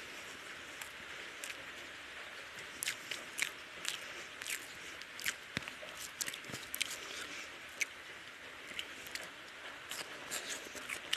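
Close-up eating sounds of rice and egg curry eaten by hand: wet chewing, mouth clicks and lip smacks, scattered from about three seconds in, over a steady hiss.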